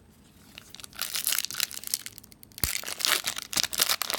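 Wrapper of a Bowman baseball card pack crinkling and tearing as it is opened, starting about a second in, with a sharp snap partway through.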